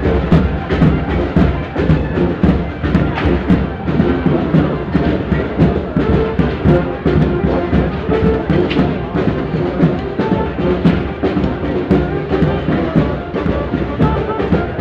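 A live parade band playing loud music, with drums beating out a steady rhythm.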